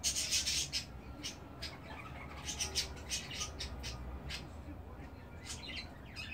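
Young budgerigars chirping and chattering in short, high calls. A burst of calls comes in the first second, another about halfway, and a few more near the end.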